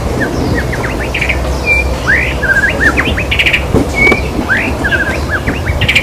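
White-rumped shama singing: a varied string of short clear whistles, quick rising sweeps and fast runs of repeated notes, over a steady low background rumble.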